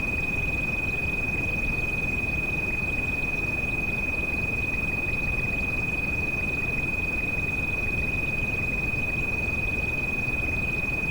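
A single steady high-pitched tinnitus-therapy tone, held at one pitch without a break, mixed over continuous rain noise heavy in the low end.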